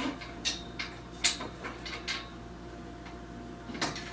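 Light metallic clicks and taps of screws and metal shelf parts being handled and fitted together, about eight irregular sharp ticks, the loudest about a second in.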